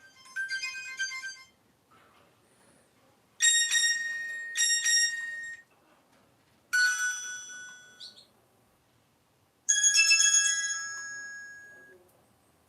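Classic Nokia-style mobile phone playing short ringtone or alert-tone phrases one after another through its small speaker. A brief melody ends about a second and a half in. Three separate ringing chime phrases follow, each fading out over a second or two, with short pauses between them.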